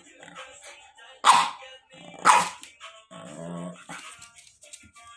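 Pug barking twice, two short, sharp barks about a second apart.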